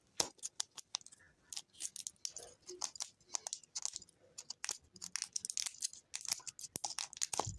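Fingernails picking at and peeling the crinkly plastic wrapper off a ToyBox toy-lollipop ball, giving many small irregular crackles and clicks.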